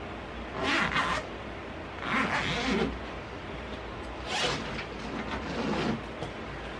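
A zipper being pulled in three short rasping strokes, the last one longer.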